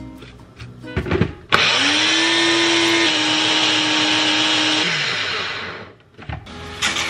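Personal bullet-style blender puréeing basil, walnuts and garlic into pesto sauce: a couple of knocks as the cup is seated on the base, then the motor starts suddenly with a rising whine, runs steadily for about three and a half seconds and winds down with a falling whine. More knocks follow near the end as the cup is handled on the base.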